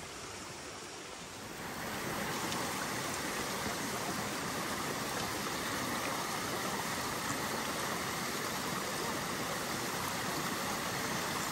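Steady rush of a mountain stream's flowing water, which grows louder about a second and a half in and then holds level.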